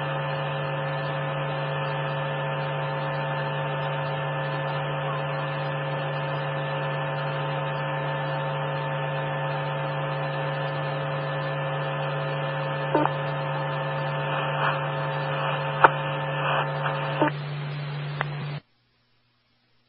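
Police scanner radio channel held open with no voice on it: a steady hum with several faint steady tones and a few clicks, cutting off suddenly to silence near the end as the transmission drops.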